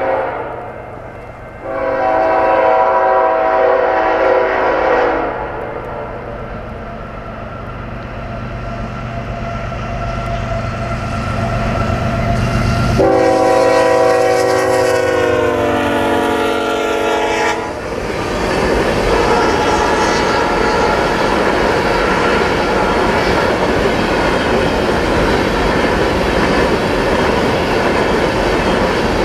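Horn of a Norfolk Southern GE ES44AC freight locomotive blowing twice: a blast about two seconds in, then a longer one as the engines go by, its pitch dropping near the end. Then the steady rumble and clatter of the freight train's tank cars rolling past.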